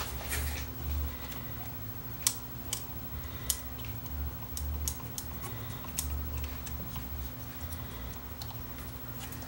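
Scattered light clicks and taps from a removed cassette deck mechanism being handled and turned over by hand, with dull low bumps against the bench, over a faint steady hum.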